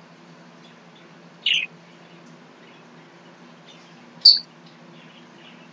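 Three short high-pitched chirps, the first about a second and a half in, the second about four seconds in and the last near the end, over a steady low hum.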